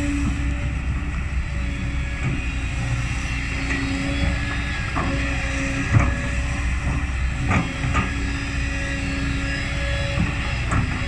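Kobelco SK200 hydraulic excavator's diesel engine running steadily under digging load, with a hydraulic humming tone that comes and goes as the boom and bucket move. Several sharp knocks of the bucket digging into hard soil, the loudest about six seconds in.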